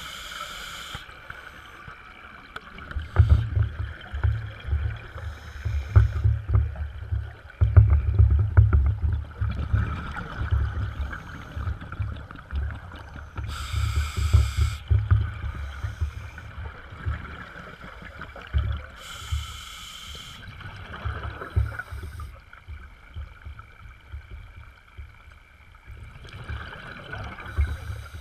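Scuba regulator breathing heard underwater: a few short hissing inhalations, with long low bubbling rumbles of exhaled air between them.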